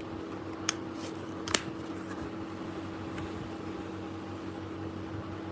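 Steady mechanical hum, with two sharp clicks under a second apart near the start.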